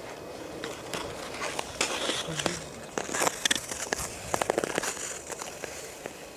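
Ice skate blades scraping and clicking on natural river ice as a skater pushes off and skates away. It is a quick run of sharp strokes and scrapes, loudest from about two to five seconds in.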